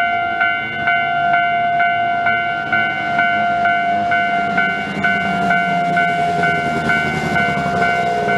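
A Japanese level crossing's electronic warning bell, Tobu Railway's standard alarm tone, dinging about twice a second. A train runs through the crossing under it, its rumble growing louder in the second half.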